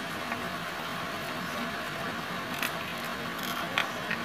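Soup in a pot coming to the boil: a steady bubbling hiss with a few small sharp pops, the loudest near the end.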